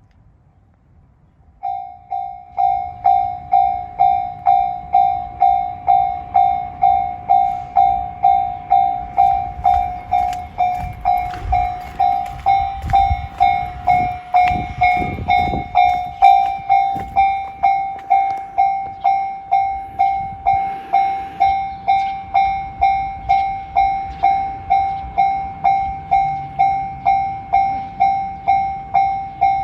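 Japanese railway level crossing alarm (JR standard electronic warning sound) switching on about two seconds in and then sounding on in quick, even pulses of a single ringing tone, about one and a half a second. A low rumble rises and fades under it around the middle.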